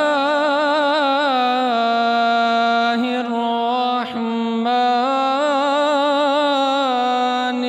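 A male qari's Quran recitation (tilawat) through a microphone: long, melodically drawn-out phrases with wavering ornaments on the held notes, broken by short pauses about three and four seconds in.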